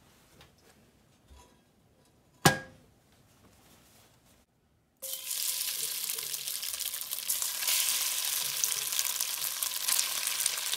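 Sliced, marinated flank steak sizzling in hot vegetable oil in a cast-iron pot: a sudden dense hiss with crackles that starts about halfway through as the first strips hit the oil and keeps going as more are added. Before that it is quiet, with a single sharp knock about two and a half seconds in.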